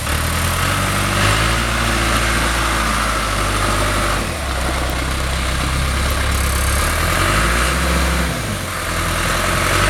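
John Deere 410C backhoe's diesel engine running. Its note shifts several times, dipping briefly about four seconds in and again near the end.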